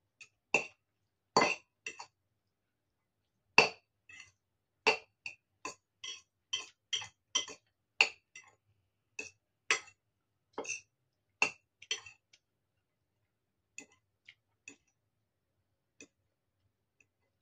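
Metal fork clinking against a ceramic bowl as noodles are twirled and picked up: sharp, irregular taps about one or two a second, growing fewer and fainter after about twelve seconds.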